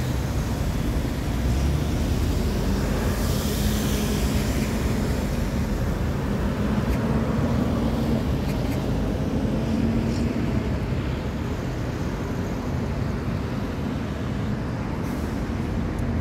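Steady low outdoor rumble with a faint low hum through the middle.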